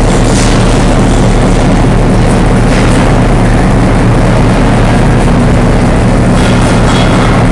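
Diesel-electric locomotive running steadily: a loud, constant low engine drone with a dense rushing noise over it.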